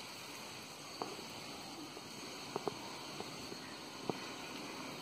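Quiet outdoor background hiss broken by a few short, sharp clicks: one about a second in, two close together just past the middle, and one near the end.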